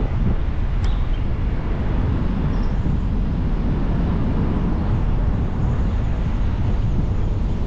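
Steady low rumble of a car driving, mostly road and wind noise, with a brief click a little under a second in.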